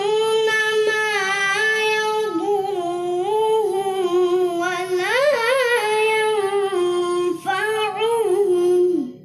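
A child reciting the Qur'an in the melodic tilawah style. One long, high, ornamented phrase with a climbing flourish near the middle, which falls and ends just before the close.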